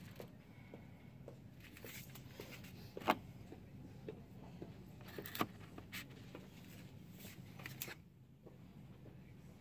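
Quiet shop-floor ambience: a low steady hum with scattered light clicks and knocks from plastic cosmetic tubs and bottles being handled. The sharpest click comes about three seconds in.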